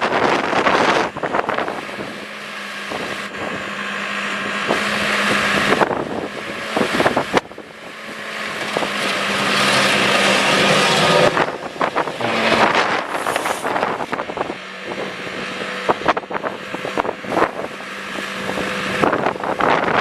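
Diesel engine of a working loader running steadily, with the engine note swelling for a few seconds midway, and wind buffeting the microphone.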